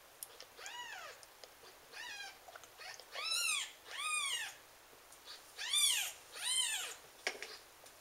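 Week-old Ragdoll kitten squealing for milk: about six high mews, each rising then falling in pitch, the loudest in two close pairs.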